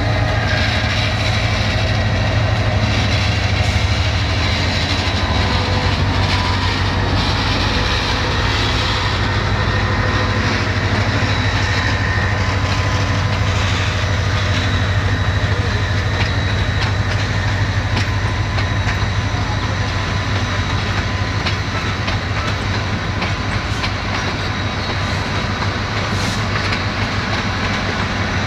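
Intercity passenger train's coaches rolling past steadily, wheels clicking over the rail joints above a continuous low rumble.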